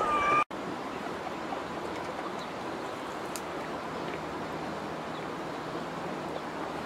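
Steady, even rushing outdoor noise with a few faint ticks. A short high call is heard in the first half-second and breaks off abruptly.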